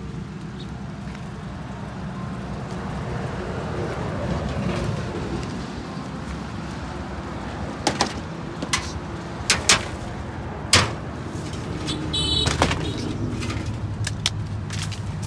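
Knocks and clatter of wooden boards and rusty corrugated metal sheets being shifted by hand, several sharp ones about eight to eleven seconds in, over a steady low rumble. A short squeak follows near the end.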